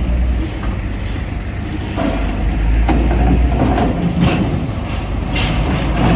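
Steady low rumble of heavy vehicle engines, with a few short knocks scattered through it.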